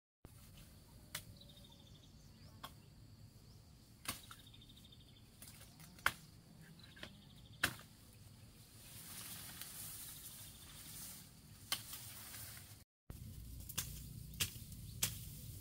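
Faint outdoor ambience among tall dry reeds: a handful of sharp snaps spread out, and a short, high, rapidly pulsed trill heard three times. Near the end the sound drops out for an instant, then a low rumble comes in.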